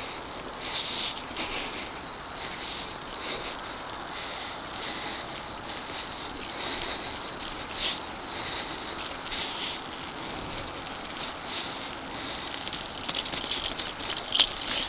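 Mountain bike riding on a leaf-covered dirt singletrack: tyres rolling and crackling over dry leaves while the bike rattles, with a quick run of sharper rattles and knocks near the end.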